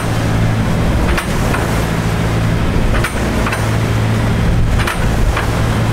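Water taxi's engine running steadily under way, a low even hum mixed with the rush of wind and water, broken by a few brief knocks about two seconds apart.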